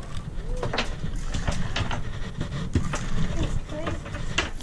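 Steady low rumble with scattered, irregular sharp clicks and knocks as a spinning reel is cranked in on a small boat.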